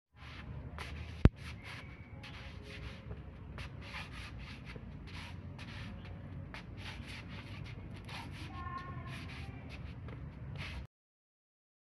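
Sneakers scuffing and scraping on concrete in short repeated strokes, a chicken's ground-scratching movement done with the feet, over open-air background noise. A single sharp click comes about a second in.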